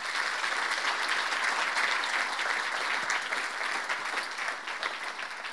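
Audience applauding, steady and then fading a little near the end.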